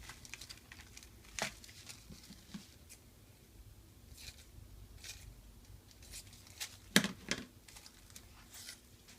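Thin plastic laminating film crinkling and rustling as it is wrapped and overlapped into a cone by hand, with scattered light clicks and one sharper tap about seven seconds in.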